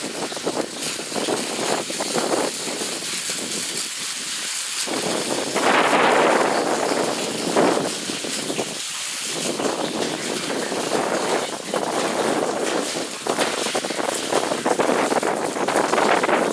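Water from a garden hose spraying onto a septic tank filter and splashing down into the tank, the hiss swelling and easing as the spray moves, with wind on the microphone.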